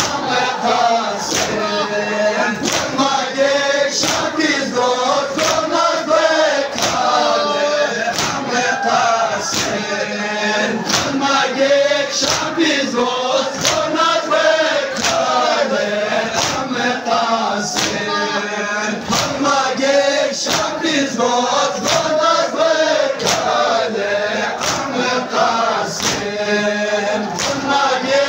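A crowd of men chanting a Balti noha together, with a steady beat of chest-beating (matam) slaps, about three every two seconds.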